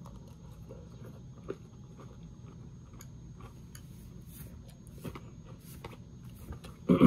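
A person chewing a mouthful of crunchy honey-oat cereal in milk, with scattered faint clicks, some likely from the spoon against the bowl. A short, loud vocal sound with a falling pitch comes at the very end.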